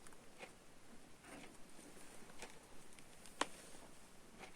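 Faint handling noises as a soldering iron is held pressed against a USB cable's sheath: scattered soft rustles and small clicks, with one sharper click about three and a half seconds in.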